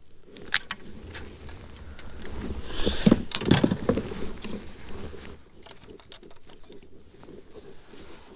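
Gear being handled in a plastic fishing kayak: scattered clicks and light knocks, with a louder stretch of rustling, rumbling and knocking about three to four seconds in.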